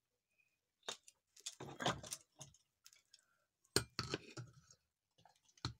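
A few sharp clicks and clinks of small hard household objects being handled: one about a second in, a cluster near two seconds, then single knocks near four seconds and near the end.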